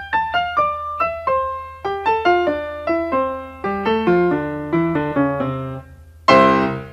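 Short intro jingle on a piano-like keyboard: a quick run of single struck notes stepping mostly downward in pitch, ending on a loud chord a little after six seconds in that rings and fades.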